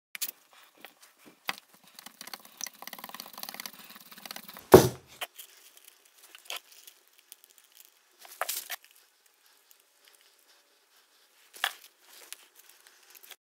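Plastic mixing bowl and blue painter's tape being handled: a run of tape-tearing crackle and crinkling over the first few seconds, then one loud knock about five seconds in, then scattered taps and rustles.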